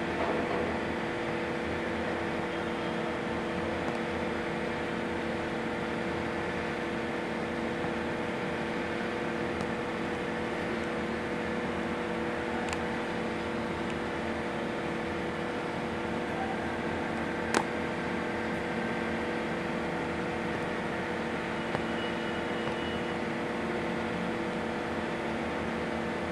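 Steady machine hum made of several constant tones over a noisy background, with one sharp click about 17 seconds in and two fainter ticks near 13 and 22 seconds.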